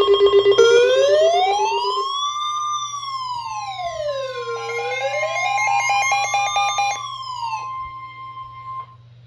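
Electronic siren wailing, rising and falling slowly twice, layered with a steady alert tone and rapid beeping tones. The siren stops near the end, leaving the steady tone alone briefly.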